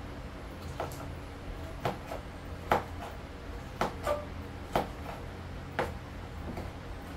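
Kitchen knife chopping vegetables on a cutting board: a handful of sharp, irregularly spaced knocks, the loudest about two and a half seconds in.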